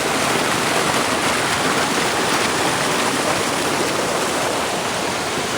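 Water of a small waterfall rushing and splashing steadily.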